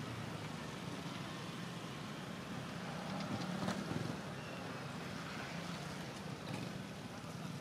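A steady low hum, like a distant motor, under a haze of outdoor background noise.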